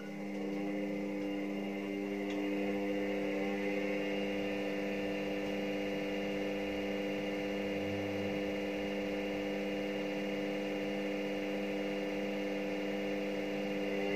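Front-loading washing machine spinning its empty drum at a steady speed: an even motor whine over a low hum, holding one pitch.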